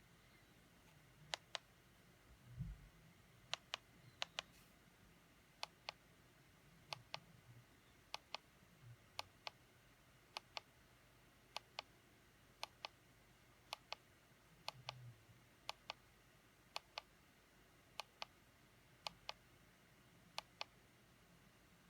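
Small push-button clicks, mostly in quick pairs like a press and release, repeating roughly once a second over a quiet background. There are soft low handling bumps about three seconds in and again near fifteen seconds.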